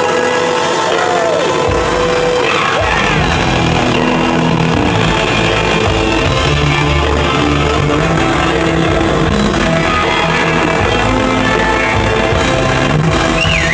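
Rock band playing live, recorded from the audience; the bass and drums come in about two seconds in.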